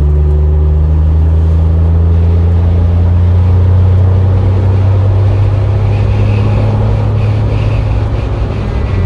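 Loud, steady low drone inside a hard-top Jeep Wrangler's cabin while driving: engine hum mixed with road and wind noise. Its pitch shifts slightly right at the start and again near the end.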